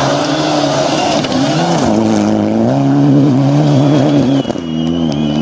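Rally car engines revving hard at speed, their pitch rising and dipping as the throttle is worked. A brief drop about four and a half seconds in, where the sound cuts from one car to another.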